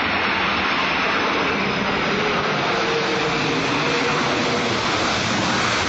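Twin-engine jet airliner's engines running during its landing rollout on a wet runway: a loud, steady rushing noise, with a faint humming tone for a second or two in the middle.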